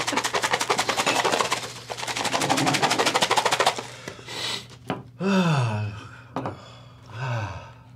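A fast, even rattling clatter for about three and a half seconds, then a man's drawn-out vocal groans that fall in pitch, three times.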